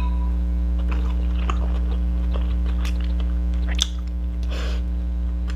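Close-up sounds of someone eating rice and fried fish by hand: scattered soft clicks and mouth smacks of chewing. A steady electrical hum runs underneath and is the loudest part.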